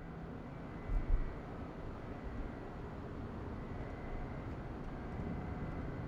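Hybrid rocket motor of Virgin Galactic's SpaceShipTwo VSS Unity burning during the boost to space, a steady low noise with a faint thin tone over it. Two brief low thumps come about a second in.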